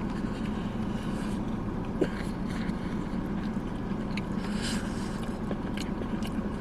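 Steady low hum inside a stationary car, with a few faint clicks and rustles.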